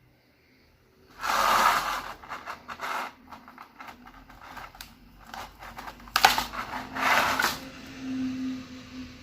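Slime being squeezed and worked by hand: several wet, squishing bursts with quick crackling pops between them.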